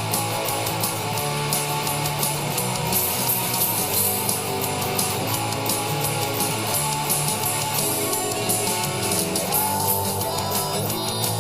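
Distorted electric guitar, a Dean ML through Boss distortion, strumming fast punk-rock chords over a backing of bass and drums.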